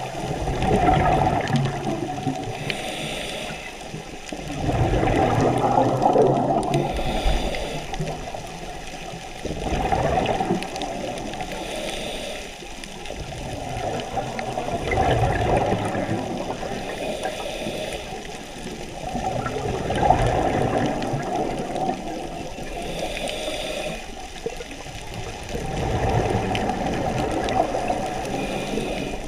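Scuba diver breathing through a regulator underwater: a short hiss on each inhale, then a longer rumble of exhaled bubbles, repeating about every five seconds.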